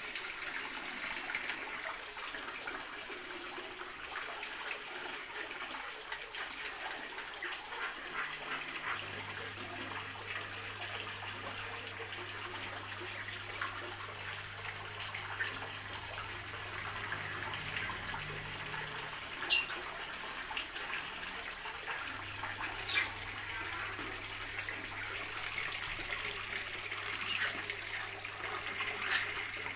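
Many small birds chirping in an aviary over a steady hiss, with a few sharper calls standing out in the second half.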